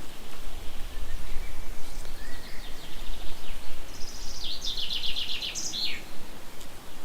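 A songbird singing, with a few chirps and then a fast run of high repeated notes about four seconds in, over steady outdoor background noise with a low rumble.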